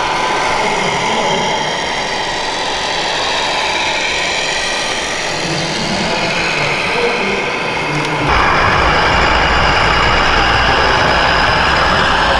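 Simulated diesel engine sound of scale RC trucks running, over the hum of a busy exhibition hall. About eight seconds in it changes abruptly to a louder, deeper engine sound.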